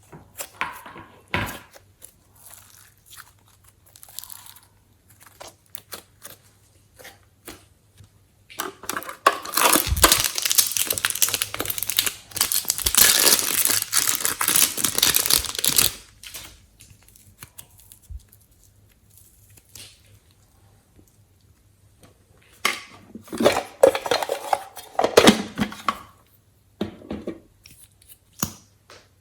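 Glossy slime being handled and mixed by hand, with sticky crackling and tearing sounds. It comes as scattered clicks, then two longer spells, one about a third of the way in and a shorter one near the end.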